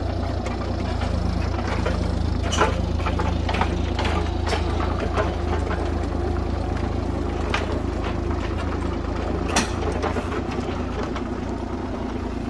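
Kubota U35-4 mini excavator's diesel engine running steadily as the machine tracks forward onto a trailer, with a few sharp knocks as it climbs the ramps, the loudest about ten seconds in.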